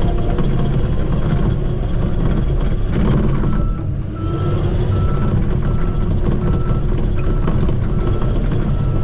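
Shantui bulldozer's diesel engine running under load, then from about three and a half seconds in its reverse alarm beeps about twice a second as the engine note rises: the dozer backing up.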